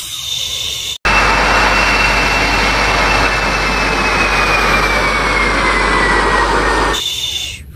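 Four-engine jet airliner passing low overhead: loud, steady jet noise with an engine whine that falls slowly in pitch. It starts abruptly about a second in and cuts off abruptly near the end.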